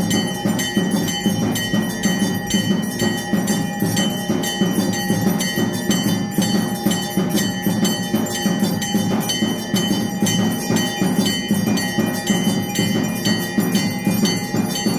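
Temple bells ringing rapidly and without pause, with percussion striking in a fast, even rhythm: the ringing of a Hindu aarti.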